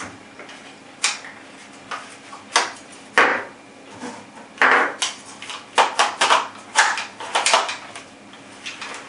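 Hard plastic airsoft rifle parts being handled, most likely the collapsible stock: a string of sharp clicks and knocks, sparse at first and coming thick and fast in the second half.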